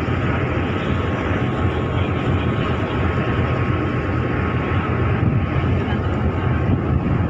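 Steady low rumble of a passenger ship's engines under way, with a constant rush of wind and water noise.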